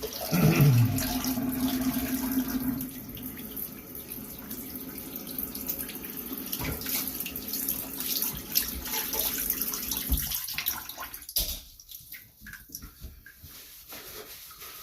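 Bathroom tap running into a sink while water is splashed over a freshly shaved head to rinse it, with a brief falling hum from the faucet as it is turned on. The water stops about ten seconds in, leaving scattered drips and small splashes.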